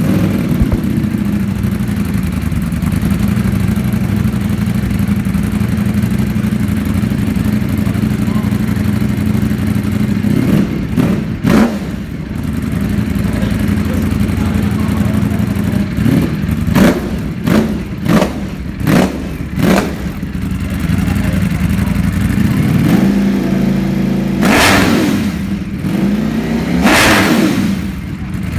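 Ducati Panigale V4 motorcycle's V4 engine idling through a loud exhaust, just after starting. The throttle is blipped twice about ten seconds in, then four short quick blips a few seconds later, then two longer revs near the end, each dropping back to idle.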